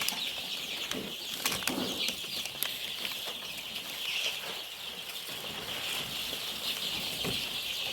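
Many young chicks peeping together in a steady high chorus, with scattered short rustles and wing flutters among them.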